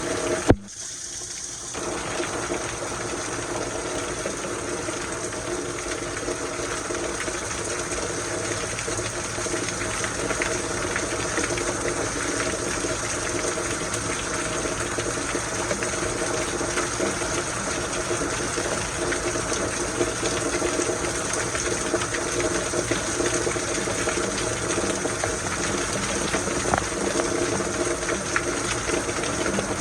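Steady heavy rain with water pouring and gushing. A sharp click about half a second in is followed by a brief drop in the sound.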